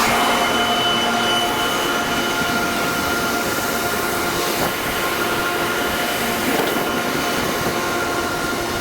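Harvest machinery running steadily under load, a constant mechanical drone with several steady whines over it.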